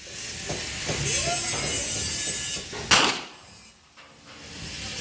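A single shot from an Alfa Proj .32 S&W Long revolver, fired single-action, about three seconds in: a sharp crack with a short ring-out, over a steady hiss of background noise.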